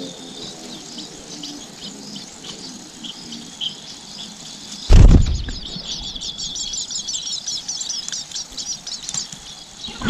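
Long-tailed shrike nestlings begging: scattered faint high chirps at first, then, after a loud thump about halfway through, a rapid continuous stream of high, thin cheeping.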